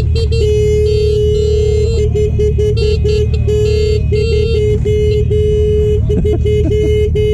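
Many car horns honking together. A loud horn close by gives a long blast and then a string of short toots, while other, higher-pitched horns beep over a steady low engine rumble.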